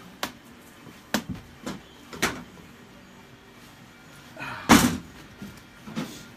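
Fiberglass mold shell being pried and worked loose from the mold: a series of irregular knocks and thumps, with one heavier bang, led in by a brief scrape, about three-quarters of the way through.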